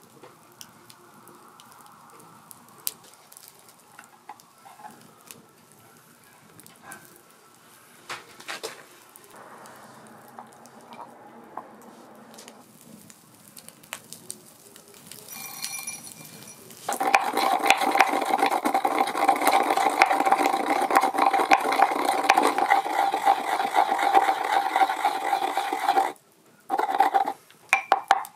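Food sizzling on high heat. First come faint scattered crackles and small clicks. About two-thirds of the way in, a loud, dense sizzle starts suddenly; it cuts off near the end, then returns in two short bursts.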